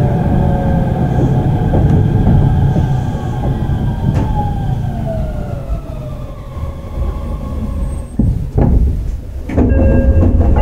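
Onboard running sound of a Shin-Keisei 8900 series train: heavy wheel-on-rail rumble under the whine of its Mitsubishi IGBT VVVF inverter and traction motors, which falls steadily in pitch and grows quieter as the train slows under braking. Shortly before the end there are a few sharp knocks, then the noise grows louder again.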